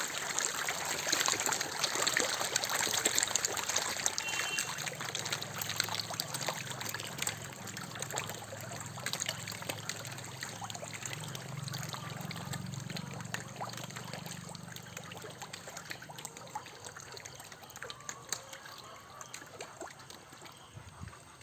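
Water trickling and splashing steadily, growing gradually fainter toward the end.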